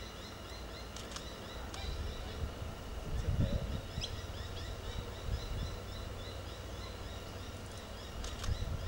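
Outdoor ambience: a steady run of short, high chirps repeating about three times a second over a low rumble that swells about three seconds in, with a few faint clicks.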